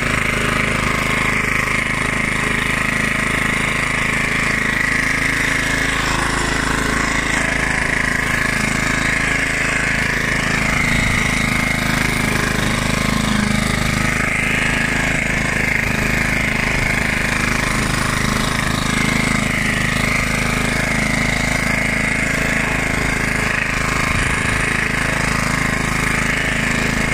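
1976 Hayterette rotary lawnmower's 3.5 hp Briggs & Stratton side-valve engine running steadily while the mower cuts grass.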